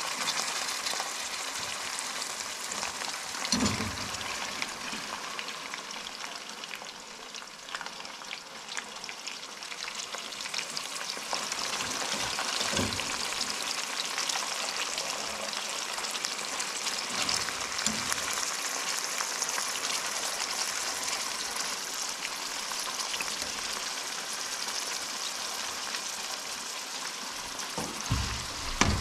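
Food frying in a pan: a steady sizzling hiss, with a few soft knocks now and then.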